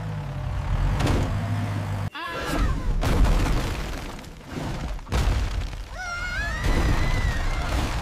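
Cartoon sound effects: a truck engine rumbling low, cut off about two seconds in by a crash of a wall breaking and blocks tumbling down for a few seconds. A high, drawn-out cry comes near the end.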